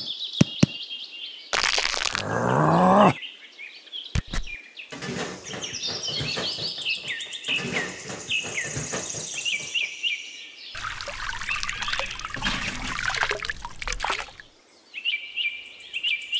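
Birds chirping throughout, over stretches of scraping and splashing as wet sand is pushed aside and water spills from a small plastic pond lifted out of its sand bed. A brief rising sound comes about two seconds in.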